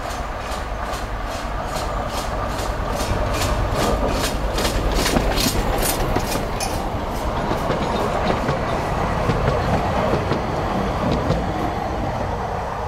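LOWA 50PS narrow-gauge steam locomotive, built at Babelsberg in 1951, chuffing past with about three exhaust beats a second, loudest about five seconds in as it passes. Its carriages then roll by on the 600 mm track with a rumble and clicking over the rail joints.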